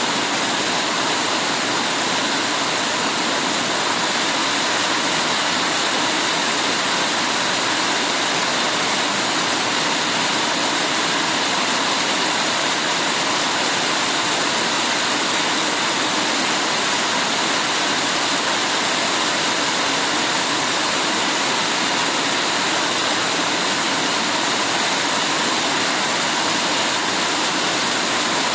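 Heavy rain falling in a steady, even downpour, with the sound of running water.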